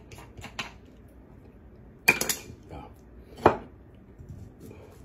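A few light scrapes of a vegetable peeler on a carrot, then a steel Chinese cleaver on a wooden cutting board: a quick cluster of sharp knocks about two seconds in and one loud knock about a second later.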